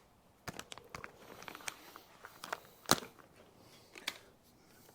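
Small scattered clicks and light knocks of hands handling the unplugged O2 sensor connector and its wiring, with one sharper knock about three seconds in.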